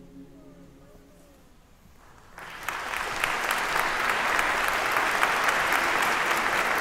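The last chord of the music dies away, and about two and a half seconds in an audience breaks into applause that swells quickly and then holds steady.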